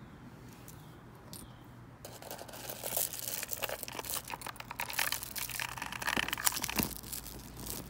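Wrapping crinkling and rustling, with quick clicks, as a piece of jewelry is taken out of a box; it starts about two seconds in, after a quiet moment.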